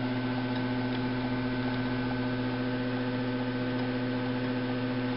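Steady low hum with a few steady higher tones over it, unchanging throughout.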